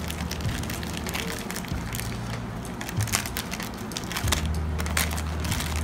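Small clear plastic packet being crinkled and pulled open by hand: a run of sharp crackles and rustles over a steady low hum.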